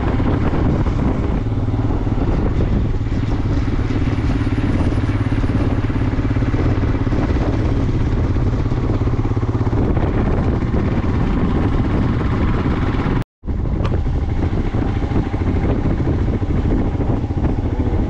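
A motor vehicle's engine running steadily while on the move, with road and wind noise. The sound cuts out for a split second about thirteen seconds in.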